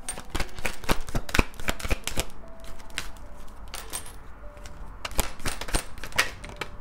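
A deck of oracle cards being shuffled and handled by hand: a steady run of quick clicks, taps and flicks of the card edges.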